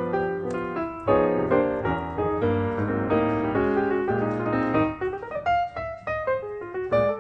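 Background piano music: a lively melody of quick separate notes over a bass line, thinning to lighter, higher notes about five seconds in.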